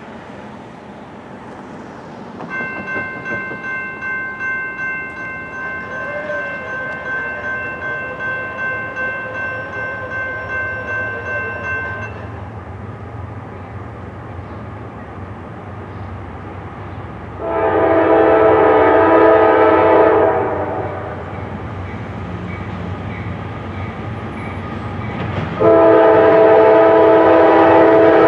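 Air horn of a Norfolk Southern GE AC44C6M diesel locomotive sounding two long blasts, the first about three seconds long and the second starting near the end, over the low rumble of the approaching intermodal train. Earlier, a high ringing tone pulses steadily for about ten seconds.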